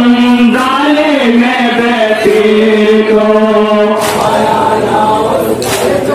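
Men chanting a Muharram lament (nauha) with long held notes. From about four seconds in, a slap of hands on chests (matam) comes in time with the chant about every second and a half.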